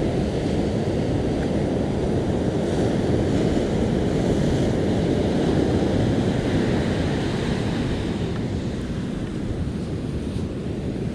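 Ocean surf washing up the beach, a steady rushing noise, with wind blowing on the microphone.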